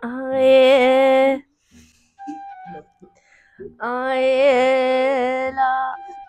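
A woman singing two long held notes with a slight vibrato: the first lasts about a second and a half at the start, the second about two seconds from around four seconds in. Short, quieter steady tones fill the gap between them.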